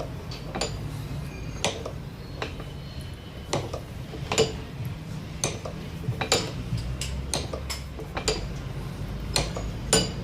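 About a dozen light, irregular metallic clicks and clinks of a tool and screw against a hydraulic valve lifter as it is slowly bled of oil, over a low steady hum.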